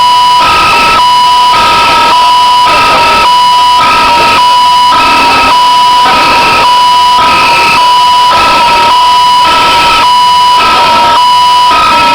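A loud two-tone alarm signal: a steady tone with a slightly higher tone switching on and off about every half second.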